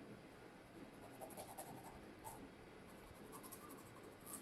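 Faint scratchy strokes of a kitchen knife scoring slits into the skin of a raw fish.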